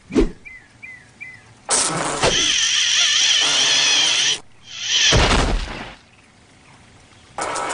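Cartoon sound effects: a fly buzzing loudly in a wavering whine as it struggles in a spider web, then a loud burst of noise about five seconds in.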